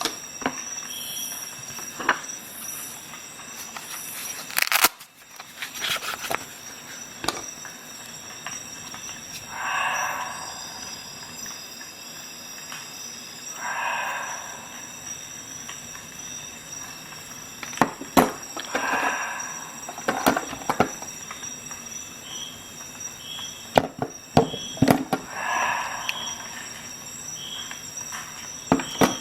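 Metal clicks and snaps of a multi-tool Swiss Army knife being handled, its blades and tools opened and shut, with scattered sharp clicks and a few short stretches of rustling handling noise.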